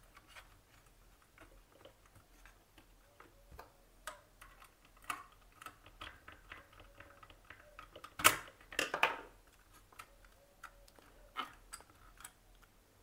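Small clicks and taps of a screwdriver tightening a terminal screw and of hands handling a plastic switchboard and its wires, scattered and irregular, with a louder click about eight seconds in followed by a short cluster of clicks.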